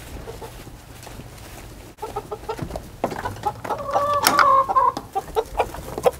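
Backyard hens clucking in a run of short, quick calls that start about two seconds in and get busier and louder toward the middle.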